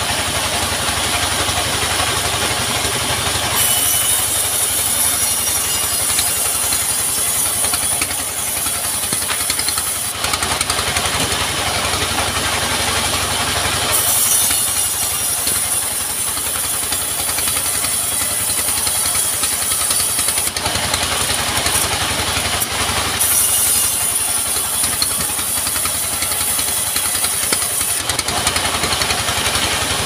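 Engine-driven band sawmill running steadily while its blade rips a log lengthwise into slabs. Over the constant engine drone, a higher hiss comes and goes in three long stretches of several seconds.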